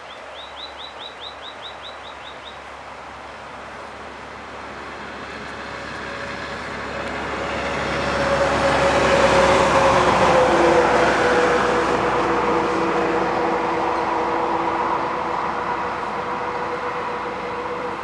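A vehicle passes, its rushing noise and steady hum building over several seconds to a peak near the middle and then slowly fading, with the hum dropping slightly in pitch as it goes by. Near the start a bird gives a short, quick high trill of about a dozen notes.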